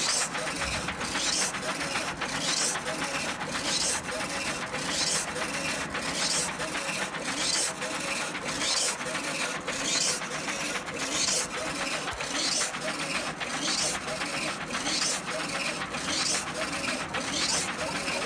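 Funsun DTF printer printing onto film: the print head carriage shuttles back and forth with a steady mechanical clatter, each pass heard as a rising whir about every 1.2 seconds.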